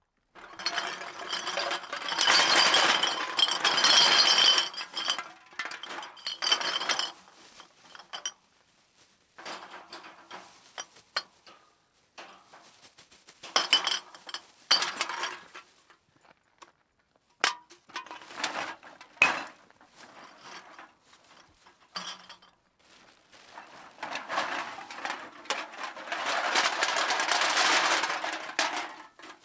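A bag of empty metal cans dumped out several times over, each a dense clatter of cans tumbling and clinking against each other, followed by a few stray knocks as they settle. The longest, loudest clatters come near the start and near the end.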